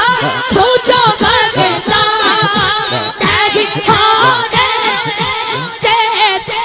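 A boy's solo voice singing a naat, a devotional Urdu-Punjabi kalam, into a microphone, with a wavering, ornamented melody.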